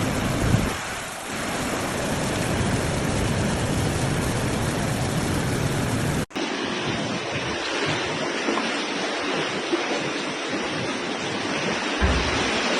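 Loud, steady rush of floodwater, cutting sharply about six seconds in to another stretch of the same rushing noise.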